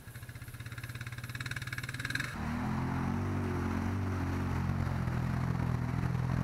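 An ATV engine running at low revs with an even pulsing beat. About two seconds in it cuts to a side-by-side UTV's engine, louder and steadier, working through deep mud.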